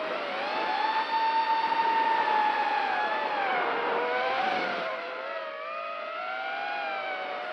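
Walkera F210 FPV racing quadcopter's brushless motors whining, the pitch rising and falling with the throttle. Around four to five seconds in the pitch dips with a rush of air noise, then climbs again near the end.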